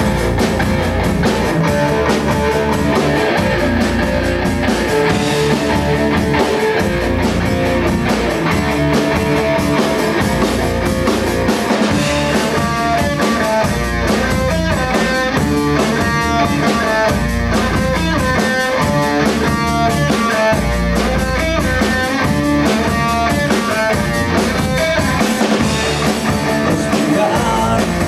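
Rock music: the instrumental opening of a song, with electric guitar over a drum kit keeping a steady beat.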